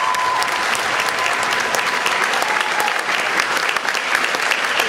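Audience applauding: dense, steady clapping. A thin steady tone sounds faintly over it for the first couple of seconds.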